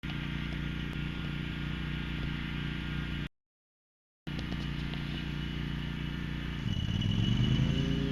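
A vehicle's engine running steadily, broken by about a second of dead silence partway through; about two-thirds of the way in, the engine speeds up and holds at a higher pitch.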